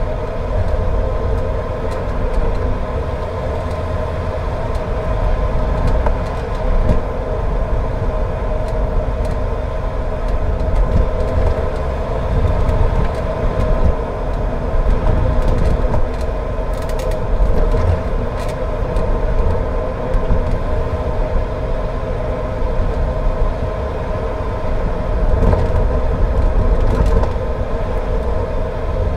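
Car driving along: a steady low rumble of engine and tyres on the road, with a constant hum over it.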